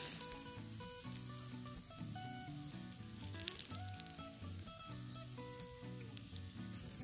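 Mussels in the half shell sizzling and bubbling in scallion oil over a charcoal grill, with a sharp pop about three and a half seconds in. Background music with held melody notes plays along.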